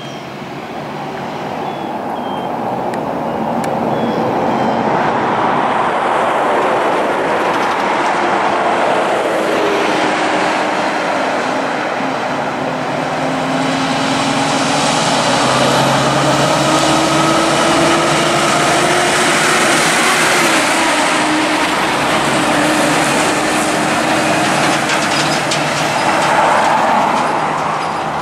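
Kenworth T909 heavy-haulage truck pulling a loaded multi-axle low-loader, its diesel engine and tyres growing louder as it approaches. It stays steady for a long stretch and is loudest as it passes close by near the end.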